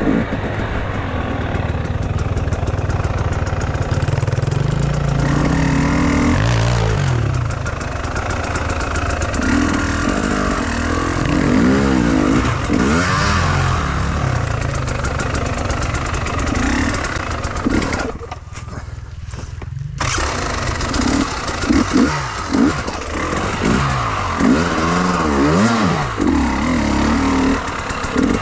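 Enduro dirt bike engine revving up and down repeatedly as it is ridden over rough ground. The sound briefly goes dull about two-thirds of the way through.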